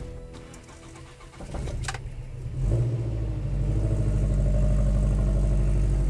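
A car engine starting: it builds up from about a second and a half in, catches near three seconds in, then runs steadily.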